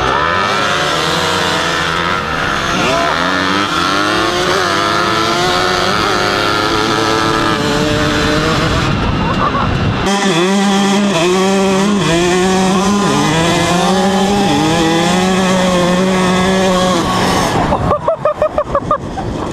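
Dirt bike engines revving and shifting, with several bikes riding together and their pitches rising and falling over one another. About halfway through, a single KTM dirt bike's engine takes over, revving up and dropping back through the gears.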